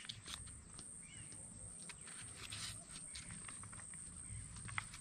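Quiet outdoor ambience: faint knife cuts and scrapes as a green mango is sliced by hand, with a bird chirping faintly twice, about a second in and near the end.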